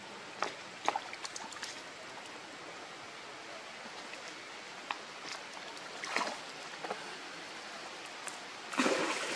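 Outdoor ambience beside still water: a steady soft hiss with scattered faint clicks and taps, and a brief louder rustle near the end.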